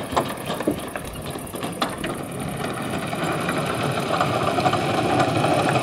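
A small motor running steadily with a rapid mechanical rattle.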